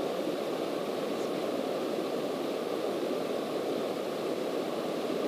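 Steady drone of a Cessna's piston engine and propeller mixed with rushing air, heard inside the cockpit in flight, deepest and strongest in the low-middle range.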